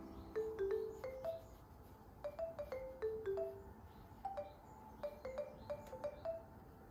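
Gentle background music: a slow melody of short, struck notes that ring briefly and fade.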